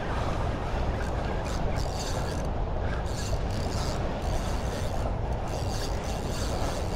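Steady low rumble of wind on the microphone, with faint, irregular high ticks scattered through it.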